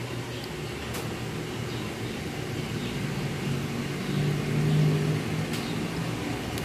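A low, steady motor-like hum that swells about four seconds in and eases off again before the end.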